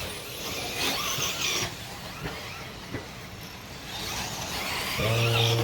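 Nitro-powered RC race car engines running on the track, with a high-pitched buzz that swells twice as cars pass. Near the end a steady low tone starts and holds.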